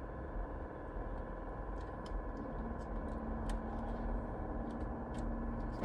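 Faint scattered clicks and light taps of small parts being handled while fitting a steering wheel, over a steady low hum; a faint steady tone comes in about two and a half seconds in.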